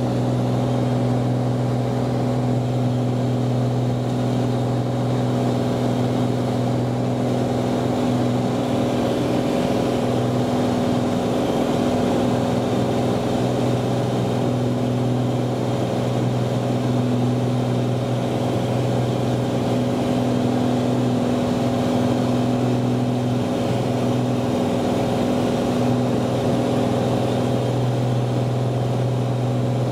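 Cirrus SR22T's turbocharged six-cylinder Continental engine and propeller running at climb power, heard from inside the cabin as a steady drone.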